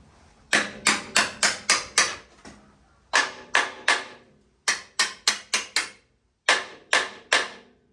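Hammer striking metal, about twenty sharp ringing blows in four quick bursts, during work to free a stuck part on a tractor mudguard.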